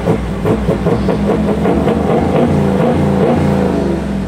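Rock music with a steady drum beat and bass guitar, with a Toyota LandCruiser 70 Series four-wheel drive's engine running underneath as it crawls along an off-road track.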